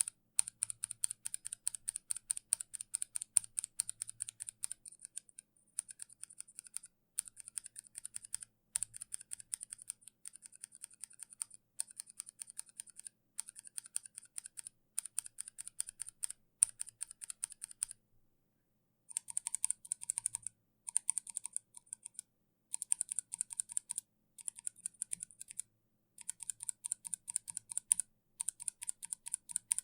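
Mechanical keyboard with Kailh switches typed on in quick, continuous runs of sharp keystroke clicks, with a break of about a second a little past halfway.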